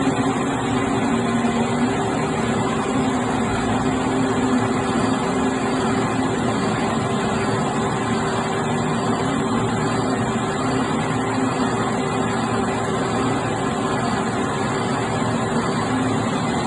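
Metal lathe running steadily with a constant low hum, turning a metal part.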